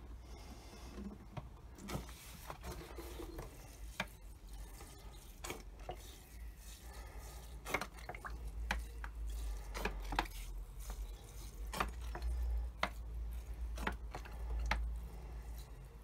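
Quiet handling of a plastic drinks bottle with a sprinkler-rose cap as water trickles from it onto compost in small plant pots: scattered sharp clicks and taps of plastic over a low steady rumble.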